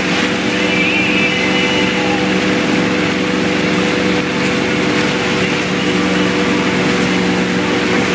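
Inboard engine of a wake-surf boat running steadily at surfing speed, an even engine hum under the rush of the churning wake.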